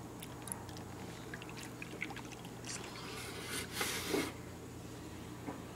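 Milk being poured from a carton into a plastic measuring cup, with a short splashing pour about three and a half seconds in and light clicks of handling before it.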